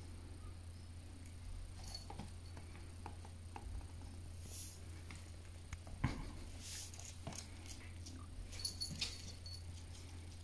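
Soft scuffling, pawing and light knocks as a puppy and a lop rabbit tussle on a plush dog bed and the rabbit hops off onto the carpet, with one sharper thump about six seconds in. A steady low hum runs underneath.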